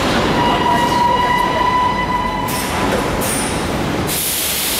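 Soviet-built metro train braking to a stop at a station platform: a steady, high brake squeal with overtones for about two and a half seconds, then short hisses of air and a longer, louder hiss near the end as it comes to a halt.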